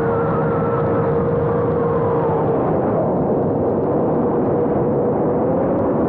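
Brushless motors and propellers of a 5-inch FPV quadcopter whining steadily in flight, heard from a camera mounted on the quad itself, over a dense rushing noise. The pitch shifts with throttle: a higher tone slides down over the first couple of seconds, and the main tone rises slightly near the end.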